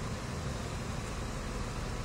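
Steady low rumble and hiss of heavy machinery running, the diesel engines of a mobile crane and trucks, with no distinct knocks or changes.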